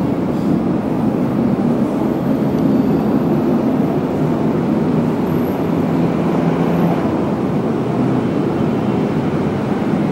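Busy city road traffic: a steady, dense mix of engine and tyre noise from passing cars and buses.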